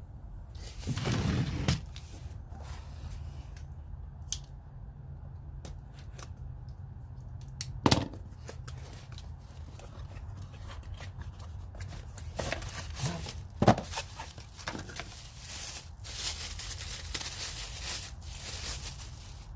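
Cardboard box and packaging being opened and a power tool unpacked: a short tearing rustle about a second in, scattered clicks, two sharp knocks, and a longer stretch of rustling near the end.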